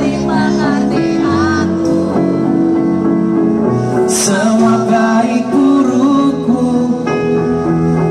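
Live band music with a lead singer: sung vocals over electric guitar and drums, amplified through a concert PA.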